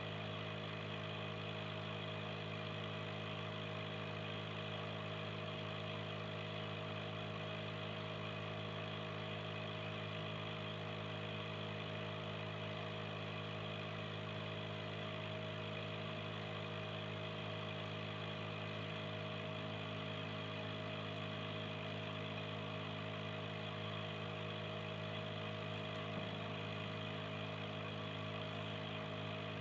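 Aquarium air pump humming steadily, with the fizz of bubbles streaming up from the air stone.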